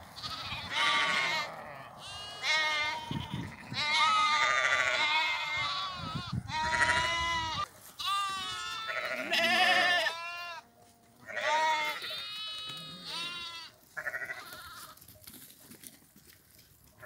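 A flock of sheep and lambs bleating, many calls overlapping one after another, thinning out to fewer calls with short quiet gaps in the last few seconds.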